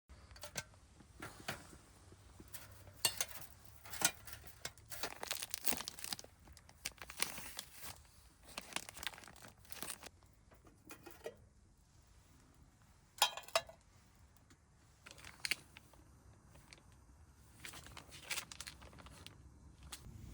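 Plastic packaging being handled: irregular crinkling and rustling with scattered sharp clicks and taps.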